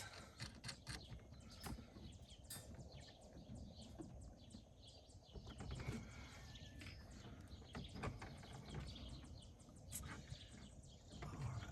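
Faint, scattered small clicks and rustling from hands handling the gauge parts and wiring under the dashboard.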